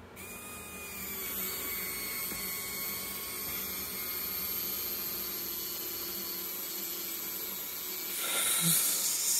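Small electric RC winch motor on a Traxxas TRX-4 whining steadily as it winds in its line, lifting a load of just under 10 pounds. A short, louder noise comes near the end.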